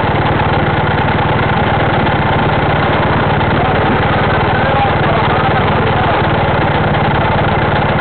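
Small engine idling steadily with a fast, even pulse of firing strokes, heard close up through a mini camera mounted on the standing vehicle.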